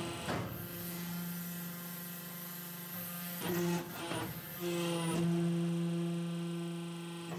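Interlocking brick machine's motor and hydraulic pump running with a steady hum, its tone shifting for about a second midway, with a few brief rushing noises over it.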